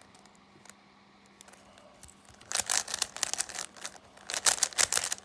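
Plastic Rubik's Cube being turned fast, its layers clicking and clacking in quick rattling runs. The runs start about halfway through, after a quieter stretch of a few faint clicks.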